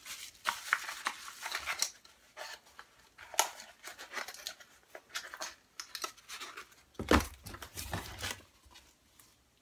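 Small packaged items and plastic packaging being handled in an open cardboard box: scattered rustling and light clicks, with a dull knock against the box about seven seconds in.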